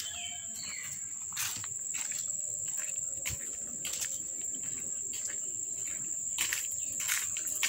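A steady, high-pitched chorus of insects trilling, broken by a few short rustles.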